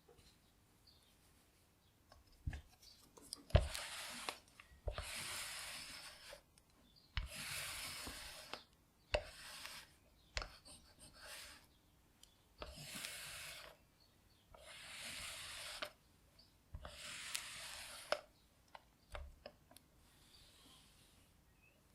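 Fabric being stroked by hand in about seven long, even rubbing strokes, each about a second, with small clicks and taps in between.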